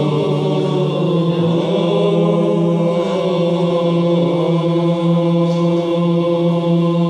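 Byzantine chant of the Orthodox liturgical responses, sung by male voices over a loud, steady low drone (the ison) held by isokrates close by. The melody lines bend and move above the unchanging held note.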